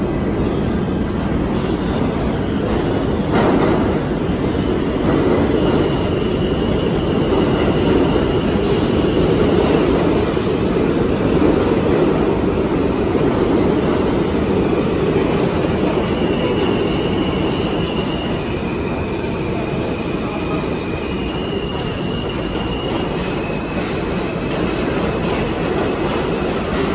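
New York City Subway R160 train running into the station: a steady heavy rumble of wheels on the rails, with several brief high wheel squeals as it slows along the platform.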